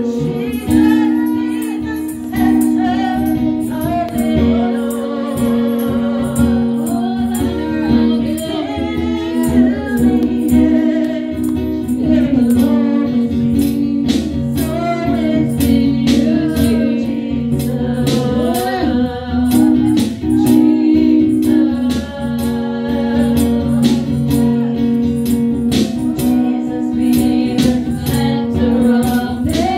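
A woman sings a gospel worship song live into a microphone, her voice sliding and holding long notes. Under her run sustained instrumental chords and a steady percussion beat.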